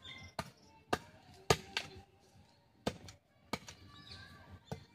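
Knife chopping with about eight sharp strikes at an uneven pace, cutting up freshly caught pond food.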